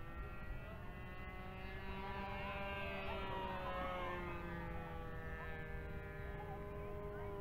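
O.S. 40 nitro glow engine of a radio-controlled low-wing plane in flight overhead, giving a steady high-pitched buzzing drone. Its pitch wavers slightly, dipping a little about midway and rising again.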